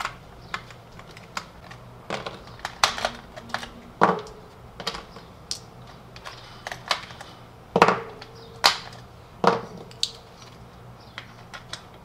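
Irregular small clicks and knocks of hard plastic and metal as a screwdriver works the battery-cover screw of a toy car, the cover comes off and AA batteries are pried out and set down on a table. A few louder knocks, around the middle and again a little later, ring briefly.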